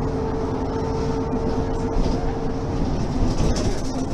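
Mercedes-Benz Citaro Facelift city bus running, its engine and drivetrain droning with a steady whine that stops a little under three seconds in.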